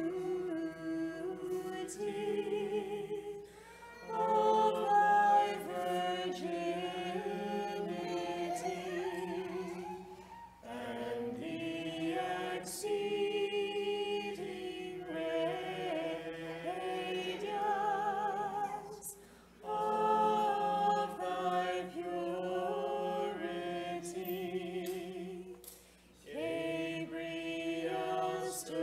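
A group of voices singing an Orthodox church hymn unaccompanied, in harmony. It comes in long phrases with short breaks for breath between them.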